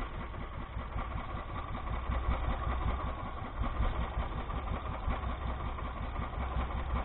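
Small boat engine idling with a steady, even putter.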